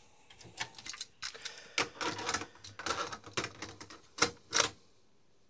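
Yamaha KX580SE cassette deck's buttons and tape mechanism clicking and clacking in an irregular run as the deck is set going and the heads come up into play.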